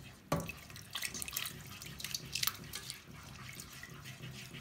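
A whisk stirring thick, bubbling béchamel sauce in a pan, with irregular wet clicks and slaps.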